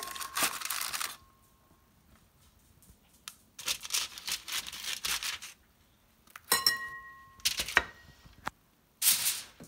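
Aluminium foil crinkling in several bursts as charred roasted red peppers are lifted off a foil-lined baking tray into a glass bowl, with a short ringing clink about six and a half seconds in. Near the end the foil rustling starts again as foil is pulled over the bowl.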